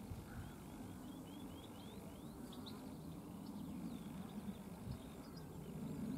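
Faint low rumble of a jet airliner passing high overhead. Over it a bird sings a quick run of short rising chirps in the first couple of seconds, then a few scattered notes.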